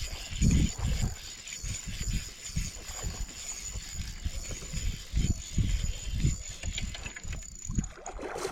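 Spinning reel being cranked while a hooked bass is fought in, with irregular low bumps and knocks from handling the rod and kayak.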